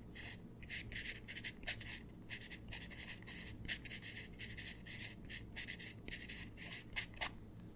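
Pencil scribbling, a quick run of scratchy strokes that stops near the end.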